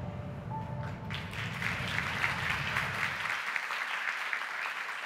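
Audience applauding, the clapping swelling about a second in and going on steadily. Under it, the low tail of a film's music track runs on and cuts off about three seconds in.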